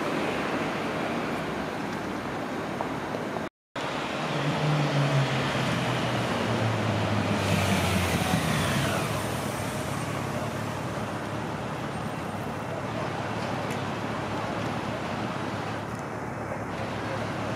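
Street traffic noise, then a Yamaha FJR1300 police motorcycle's inline-four engine as the bike rides in and slows, its engine note stepping down. Partway through, a high tone slides downward.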